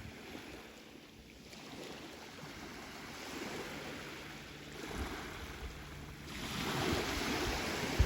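Sea waves washing on the shore: a steady hiss of surf that ebbs and swells, growing louder about six seconds in as a bigger wave comes in.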